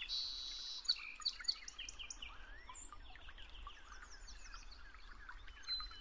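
Many small birds chirping and calling at once: a busy run of short, quick rising and falling chirps throughout.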